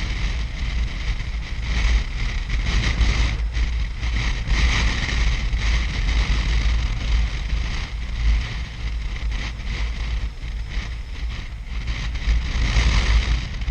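Wind buffeting the microphone on a moving BMW R1150RT motorcycle in strong wind: a heavy low rumble and hiss that swells and fades, over the bike's running and road noise.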